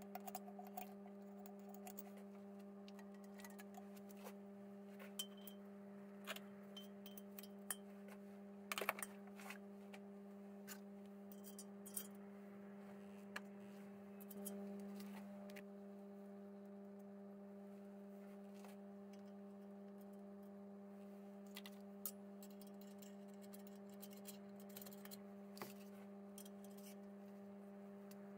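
Scattered light metallic clicks and clinks of valve springs and a valve spring compressor being handled on a motorcycle cylinder head while the valves are assembled, over a steady low electrical hum.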